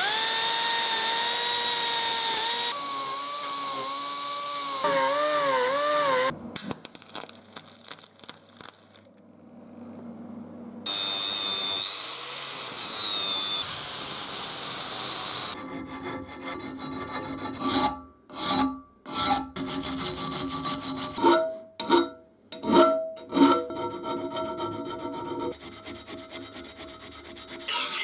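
Workshop tool work on rusty steel parts of a metal shear: a motor-driven tool whining with a wavering pitch, then a stretch of loud abrasive noise, then a run of choppy, start-stop filing and rubbing strokes on metal.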